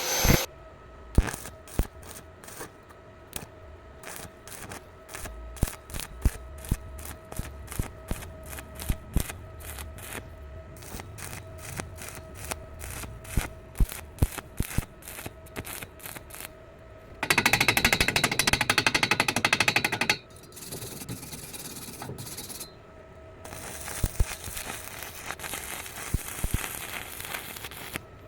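Welding arc struck in many short bursts, a crackling click about two to three times a second over a faint steady whine, the way gaps in thin metal are bridged tack by tack. About seventeen seconds in comes a louder, continuous three-second stretch of harsh noise, then quieter hissing with scattered clicks.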